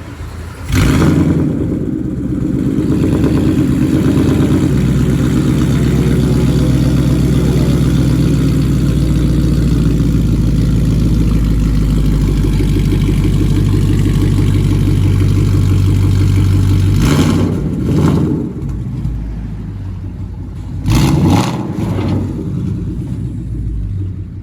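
Car engine starting with a sharp burst about a second in, then running steadily through its exhaust. It is revved briefly twice near the end, then settles to a quieter idle.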